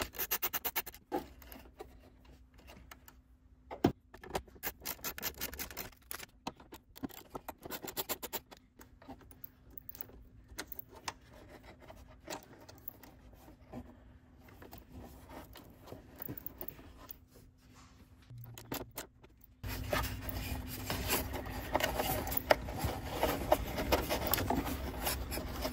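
Small metallic clicks, taps and scrapes of a socket wrench, nuts and wire ring terminals as wires are fastened to a grounding bar and a fuse-box terminal under a car's hood. There is one louder knock about four seconds in, and the handling noise gets louder and busier from about two-thirds of the way through.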